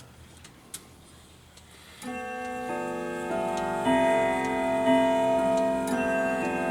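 Grandfather clock ticking softly, then about two seconds in its chime starts: a tune of struck notes that ring on and overlap one another.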